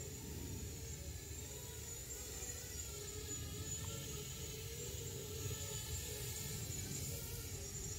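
5-inch FPV quadcopter's motors and propellers buzzing in flight, the pitch wandering up and down as the throttle changes.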